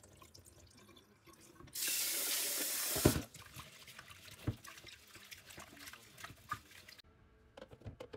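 Kitchen tap running into a plastic bowl of rice in a steel sink for about a second and a half, ending with a knock. Then faint small splashes and drips as the rice is rubbed clean in the water.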